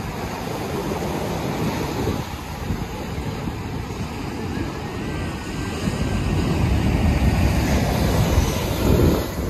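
Ocean surf breaking and washing up a sandy beach, with wind buffeting the microphone. The rumble swells and is loudest near the end.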